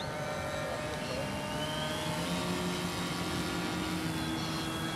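Electric motors and propellers of a four-engine electric model Hercules airplane running with a steady multi-tone whine, one tone rising briefly about two seconds in.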